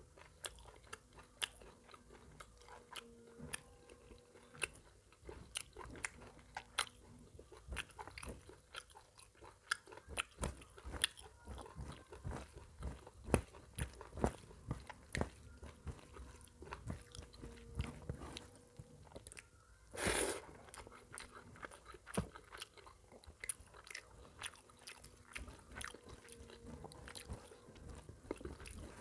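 Close-miked ASMR eating sounds of a man eating a mutton curry and rice meal by hand: steady chewing and biting with many short, sharp mouth clicks and smacks, and one louder noisy burst about two-thirds of the way through.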